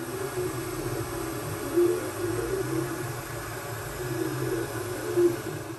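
QIDI X-CF Pro 3D printer printing: the steady whir of its fans with a hum that wavers in pitch as the print head moves over the bed.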